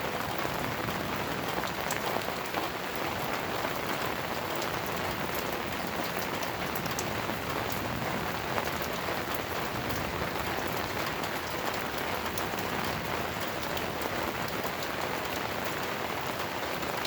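Steady rain falling, with a constant hiss and the ticks of individual drops striking close by. No thunder stands out.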